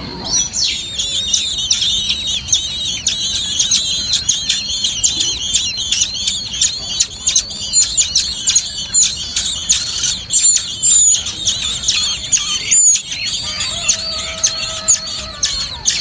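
Common blackbird nestlings begging for food: a dense, continuous chorus of rapid, high-pitched cheeping calls from the brood.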